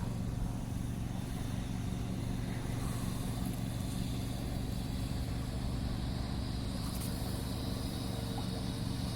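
Steady low engine hum that holds an even pitch.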